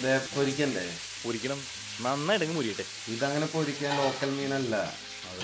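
A man speaking Malayalam over the steady sizzle of salmon steaks frying in oil in a pan; the speech is the loudest sound.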